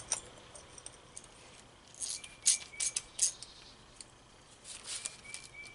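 Light metallic clicks and clinks of a hand tool on a Briggs & Stratton carburetor's metal float bowl as its bowl nut is tightened, a quick cluster about two seconds in and a few more near the end, some with a faint ring.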